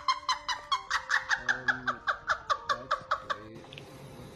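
A woman laughing hard, a rapid high-pitched ha-ha-ha at about five a second, that cuts off about three and a half seconds in.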